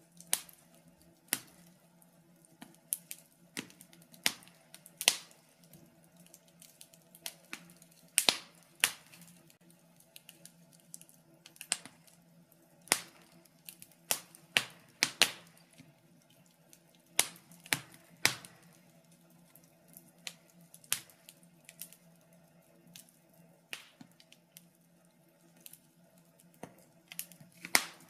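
Wood fire burning in a fireplace, crackling with irregular sharp pops and snaps, over a faint steady hum.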